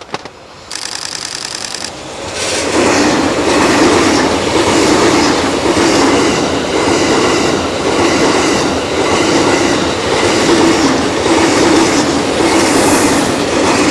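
E001 series 'Shiki-shima' cruise train passing close by, its wheels clattering over the rail joints in a steady pulsing rhythm. A short burst of rapid ticking comes about a second in, just before the train arrives.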